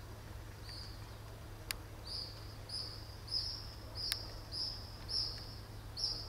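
Short high chirps repeated about twice a second, typical of a bird calling, with a couple of sharp clicks.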